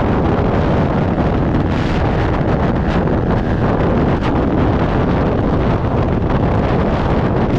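Steady, loud wind rush over the microphone of a KTM Duke 250 held near its top speed at about 142 km/h, with the motorcycle's running noise mixed in beneath it.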